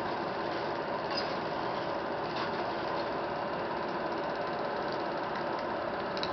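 A film projector running, with a steady mechanical whirr.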